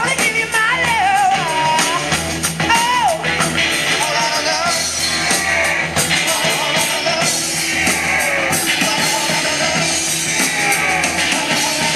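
Rock song with a singing voice, played back from a cassette tape on a Fisher CD-4020 stereo cassette deck. The sung melody is clearest in the first few seconds, over drums and guitar that continue throughout.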